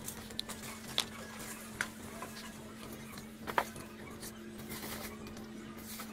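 A few sharp clicks and knocks from branches and a bamboo picking pole being handled in an avocado tree, over a steady low hum.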